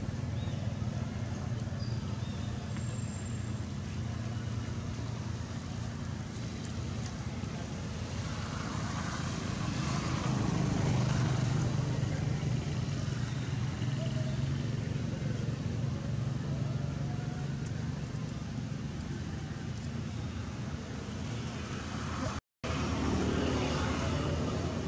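Steady low rumble of vehicle traffic, dropping out for an instant near the end.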